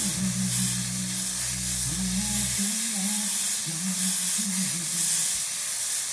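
Steady hiss of steam from a steamer played onto a wooden pool cue shaft, swelling dents in the wood back up.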